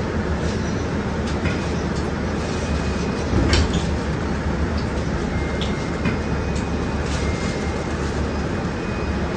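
Cabin noise inside a KAMAZ-6282 electric bus: a steady low rumble with traffic swishing past on the wet road outside. Occasional rattles and clicks are heard, with a louder knock about three and a half seconds in. A faint high whine comes and goes.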